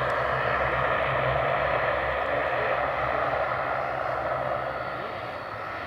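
Airliner engines running, a steady rushing hum with a low drone underneath that eases off slightly near the end.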